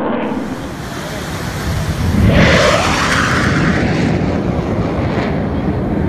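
A jet aircraft passing low overhead: a loud, rushing roar that swells to its loudest about two seconds in and then stays loud as the jet goes by.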